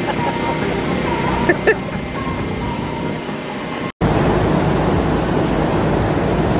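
Steady mechanical hum of idling heavy truck engines. After a brief dropout about four seconds in, a louder, even rushing noise takes over.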